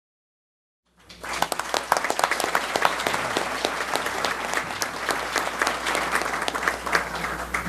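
Applause from a roomful of people, cutting in abruptly about a second in and continuing steadily as a dense patter of many hands clapping.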